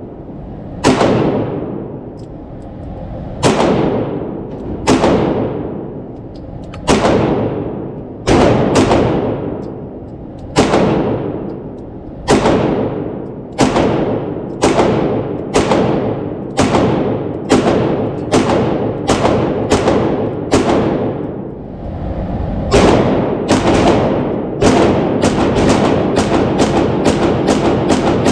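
Glock 17 9mm pistol firing, sharp shots each followed by a long echoing decay, spaced about a second or more apart, then quicker strings of about three shots a second near the end.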